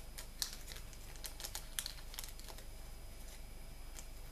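Light crinkling and small sharp clicks as fingers handle a small accessory from an HDD caddy kit, busiest in the first two and a half seconds and with one faint click near the end.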